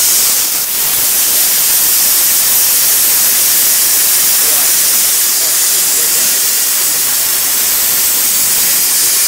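Plasma cutter torch on a CNC plasma table cutting through metal plate: a loud, steady hiss of the plasma arc.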